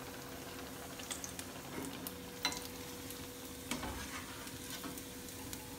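Potato-corn-cheese tikkis shallow-frying in hot oil in a pan: a steady low sizzle with scattered crackles and pops, two sharper ones about two and a half and nearly four seconds in. A faint steady hum runs underneath.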